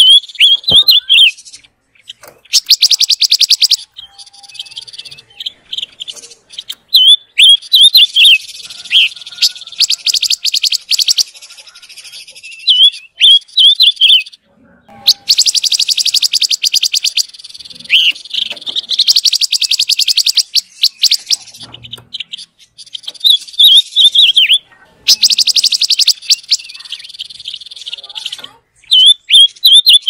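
Silver-eared mesia singing: quick warbling, whistled notes alternating with long, very fast dry chattering rattles, in bursts of a few seconds separated by short pauses.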